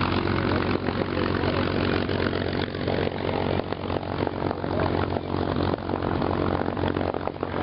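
Yak-55M aerobatic plane's nine-cylinder radial engine and three-blade propeller running steadily overhead.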